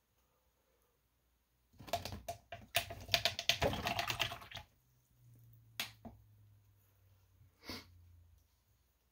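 Handling noise on a work desk: a dense run of quick clicks and rustles lasting about three seconds, then two single clicks.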